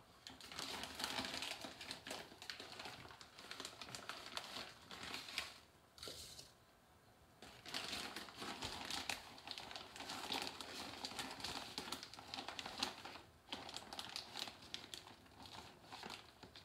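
Plastic bag of brown sugar crinkling and rustling as the sugar is scooped out of it into a measuring cup, with a short lull about six seconds in.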